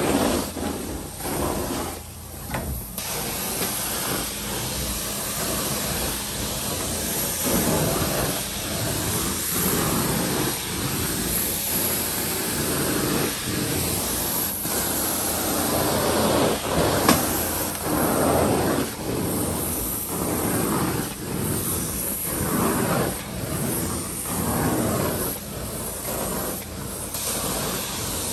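Carpet-cleaning extraction wand hissing as it sucks across the carpet. The rushing swells and falls in repeated strokes about once a second.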